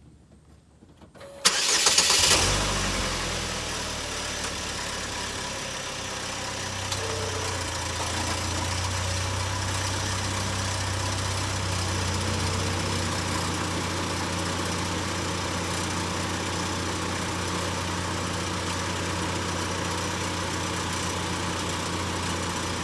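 2012 Chevy Equinox engine starting about a second and a half in, running loud for a moment and then settling into a steady idle. The exhaust is heard with the cracked resonator freshly sealed with repair putty, and no leak is felt.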